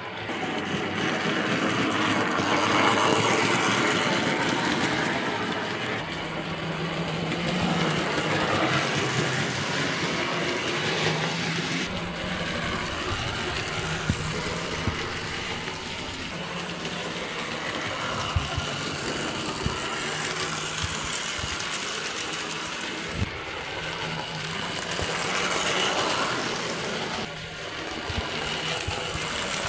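Hornby model train running round the layout: its small electric motor whirring and the wheels rattling along the track. It gets louder and quieter as the train passes, with a few sharp clicks along the way.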